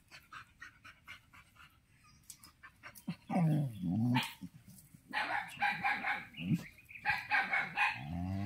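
Dogs barking in several outbursts, starting about three seconds in.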